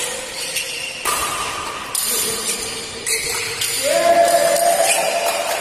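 Indoor badminton doubles rally: sharp hits about a second apart over a steady pitched tone. The tone jumps higher and louder a little before the end, then fades.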